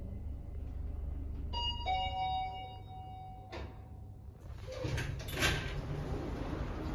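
Hitachi lift's arrival chime: a two-note descending ding-dong about a second and a half in, ringing for about two seconds over the car's low running hum. A click follows and the doors slide open onto louder hall noise.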